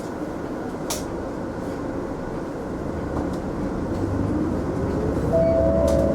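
Mitsubishi Fuso Aerostar city bus running, heard from inside the cabin: a steady mix of engine and road noise. In the second half a whine rises in pitch and the noise grows louder as the bus speeds up, and a short steady tone sounds near the end.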